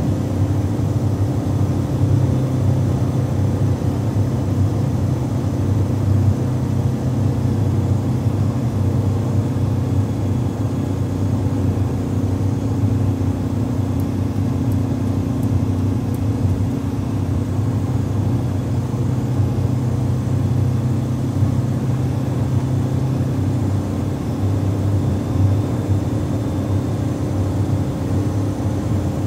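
Interior of a 1980 Ford Fiesta with the 1300cc engine cruising at constant motorway speed: a steady low engine drone mixed with road and wind noise in the cabin.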